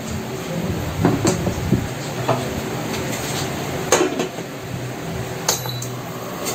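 Glass pot lid clinking and knocking against a stainless steel cooking pot as it is handled and set on, several sharp clinks with the last, about five seconds in, ringing briefly. A steady low hum runs underneath.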